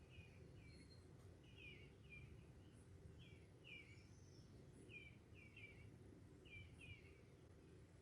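Faint bird chirping: short falling chirps in twos and threes, repeating about every second, over a low background rumble.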